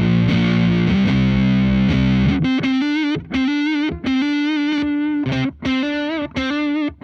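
Electric guitar, a Fender Stratocaster through a FuzzHugger FX Lab Ratchet gated fuzz pedal into a Laney VC30 amp, playing a heavily fuzzed sustained chord. About two and a half seconds in it switches to single notes with wavering pitch that cut off abruptly between phrases.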